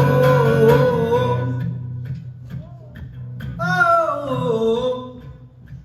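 Song with voice and guitar: a long held note fades over the first two seconds, then a wordless gliding phrase rises and falls about three and a half seconds in over a soft guitar accompaniment.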